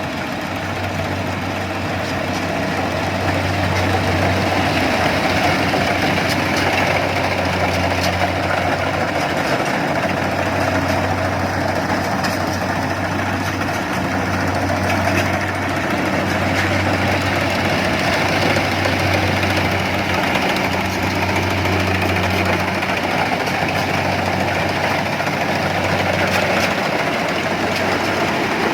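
An engine running steadily, its low hum swelling and easing every few seconds.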